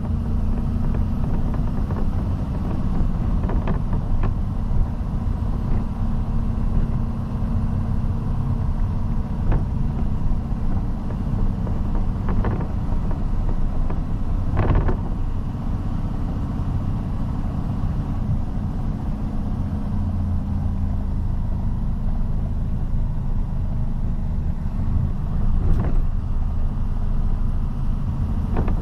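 Road vehicle driving, heard from inside: steady engine hum and low road rumble, with a few brief knocks and rattles.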